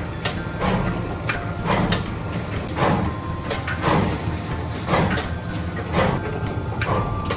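Dango-forming machine running as it shapes rice-flour dough into balls: a steady motor hum with a sharp clack about once a second.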